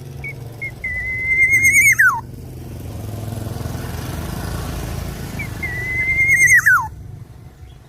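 Black-naped oriole giving two long whistled calls, each a held steady note that drops sharply in pitch at the end, the first about two seconds in and the second near the end, over a low steady rumble.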